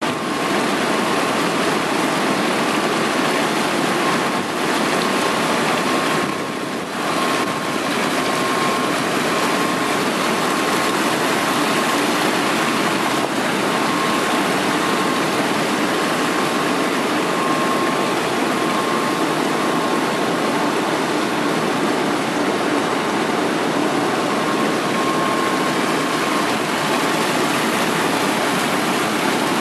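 Water gushing from a pipe outlet into a treatment tank, a steady splashing rush, with a faint steady whine beneath it.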